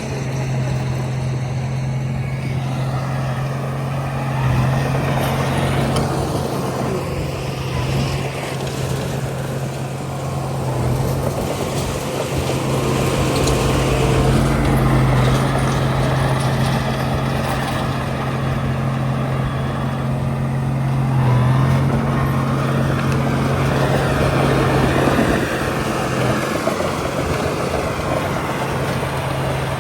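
Komatsu D31A bulldozer's diesel engine running steadily while working, growing louder for a few seconds at a time several times.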